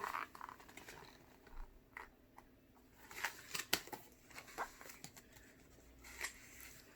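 Faint rustling with a few short clicks and taps: the pages of a picture book being handled and turned.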